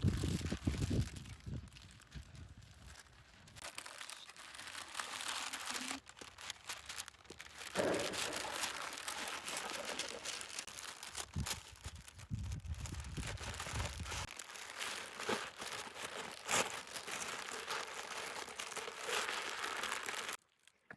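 Irregular crinkling and rustling of material being handled, with scattered small clicks; it stops abruptly near the end.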